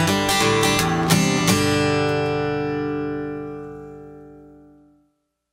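Acoustic guitar strumming a few last strokes, then the final chord of the song left ringing and slowly dying away until it stops about five seconds in.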